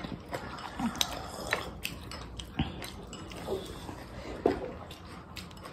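Quiet mealtime sounds at a table: a handful of light, separate clicks and taps of chopsticks against plates and bowls, with faint soft sounds between them.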